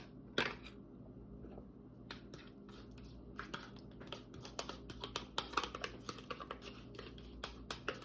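A spoon scraping and tapping as yogurt is scooped out of its cup. It makes a rapid series of light clicks and taps, sparse at first and dense from about two seconds in.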